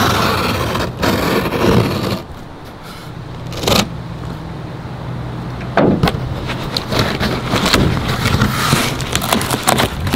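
Cardboard shipping box being opened with a utility knife: a stretch of scraping as the blade drags along the taped seam, then a string of short crackles, scrapes and tape tearing as the flaps are worked open.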